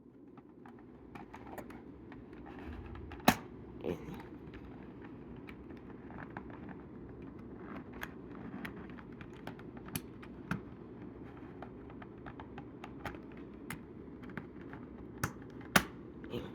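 Cardboard-and-plastic toy packaging being handled and opened by hand: scattered clicks and crinkles, with a couple of sharp snaps, about three seconds in and near the end, over a steady low background noise.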